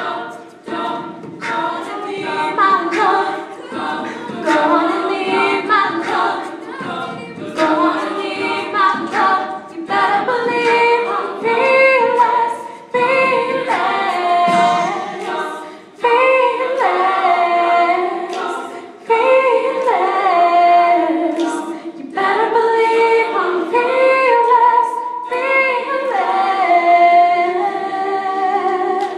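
All-female a cappella group singing, several women's voices in harmony with no instruments, phrase after phrase with short breaths between.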